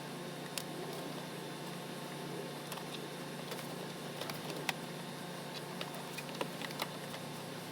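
Steady low hum with scattered sharp clicks and taps from hands working on plastic fender-liner parts and clips.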